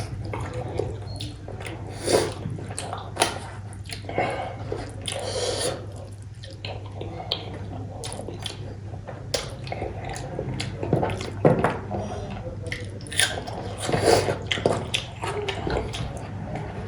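Close-up wet eating sounds of cooked goat head meat being chewed, sucked and smacked: a busy run of short squelches and clicks, over a steady low hum.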